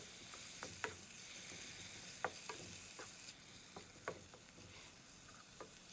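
Pork and red curry paste frying in a pan with a little water, a soft sizzle with scattered clicks of the spatula against the pan. The sizzle thins a little after about three seconds.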